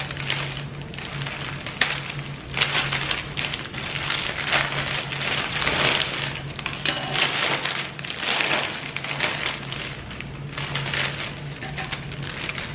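Plastic cellophane sleeve of a flower bouquet crinkling and rustling in irregular bursts as it is pulled at and cut open with scissors, with a few sharp snips.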